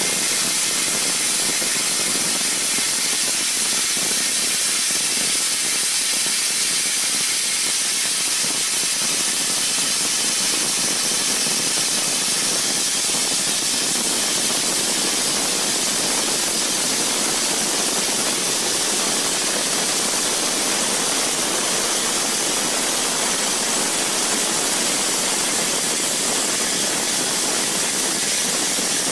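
OMAX A-Jet abrasive waterjet cutting head cutting through a metal plate: a steady, high-pitched hiss of the high-pressure jet.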